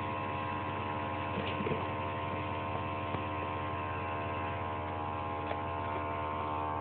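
A steady, even hum made of several held tones, with a few faint clicks; no horn blast sounds.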